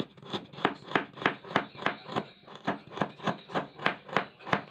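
Kitchen knife slicing a carrot into thin rounds on a wooden board: a steady run of sharp knocks of the blade on the board, about three a second, with a brief pause about halfway through.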